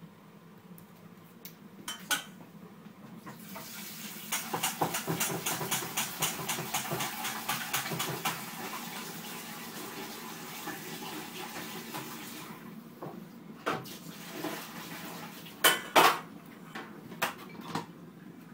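Water pouring from a metal saucepan into a glass jug, with rapid small clinks of the pan and utensils, from about three seconds in until about twelve seconds in. Then several sharp clatters of pans and utensils near the end.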